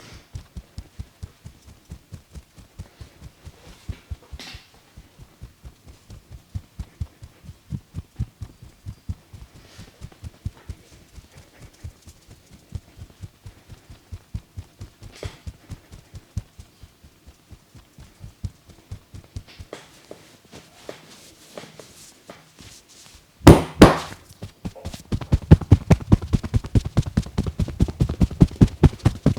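Hands patting and tapping rhythmically on a person's neck during a massage, soft thumps at about four a second. Near the end comes one loud slap, then the patting turns faster and louder.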